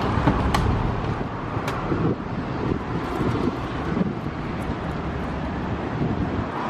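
Street ambience: a steady low rumble of traffic with wind buffeting the microphone, and a few small clicks in the first two seconds.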